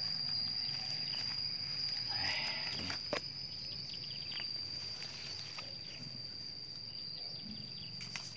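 A continuous high-pitched insect trill, steady throughout, with a brief rustle about two seconds in and a single sharp click about three seconds in.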